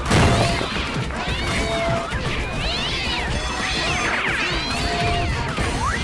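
Cartoon fight-cloud sound effects: a crash at the start, then a jumble of whacks and rising and falling squeals and yowls over background music, with a quick rising whistle near the end.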